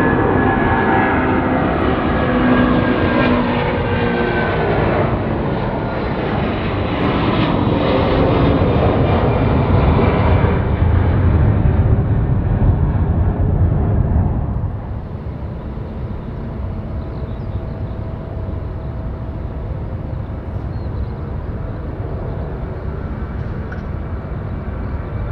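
Airbus A330 twin-jet departing, its engine whine falling in pitch as it passes, then a heavy low rumble that drops away suddenly about fourteen seconds in. Quieter, steady jet noise follows.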